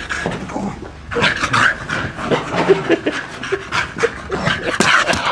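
Shetland sheepdog panting in quick, irregular breaths while playing.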